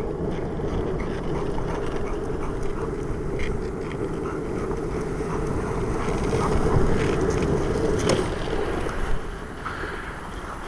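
Steady rolling rumble of wheels on pavement as a rider is towed by a dog, easing off somewhat near the end.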